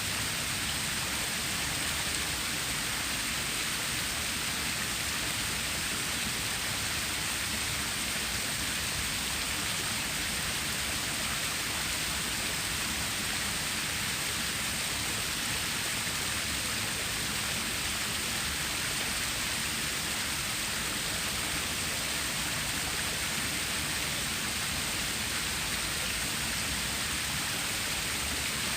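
Flowing water of a stream or small waterfall: a steady, even rushing hiss that does not change.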